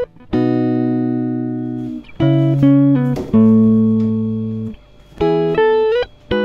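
Background music: a plucked guitar playing slow chords, each held and ringing out for a second or two before the next.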